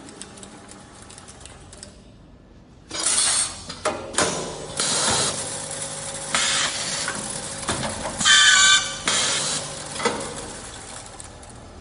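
Hardware counting and packing machine running through its cycle. After about three seconds of low background comes a string of loud hissing bursts, one about eight seconds in with a high squeal, and the noise dies down about ten seconds in.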